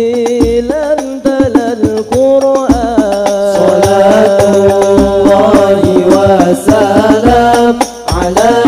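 Arabic devotional sholawat song: voices drawing out long, ornamented sung notes over music with a low, irregular drumbeat.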